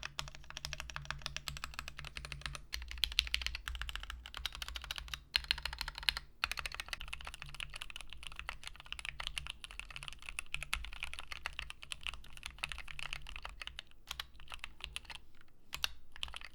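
Fast typing on a Keychron Q8 mechanical keyboard with lubed Gateron G Pro Red linear switches, gasket-mounted steel plate and acoustic tape under the PCB: a rapid, continuous stream of key clicks with a few brief pauses. The sound is fairly high.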